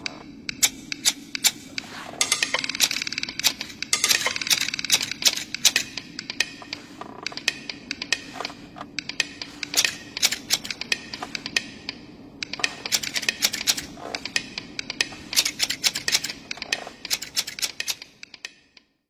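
Knitting needles clicking rapidly and irregularly, with two stretches of hissing rustle, over a faint steady low hum.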